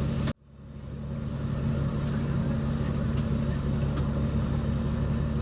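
A fishing boat's engine running at a steady drone. It cuts out abruptly a moment in and fades back up over a second or so.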